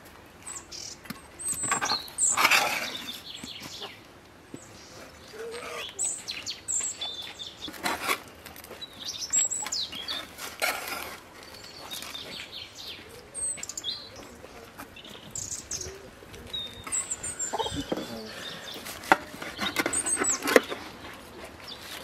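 Small birds chirping on and off, with a knife and metal spatula scraping and knocking against a metal baking tray as a baked cheese-topped bread roll is cut. The loudest scrape comes about two and a half seconds in.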